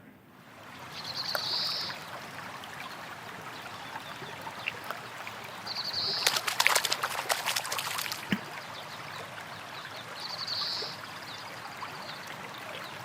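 Water running and trickling steadily, with a loud burst of splashing from about six to eight seconds in. A short high chirp recurs every four seconds or so.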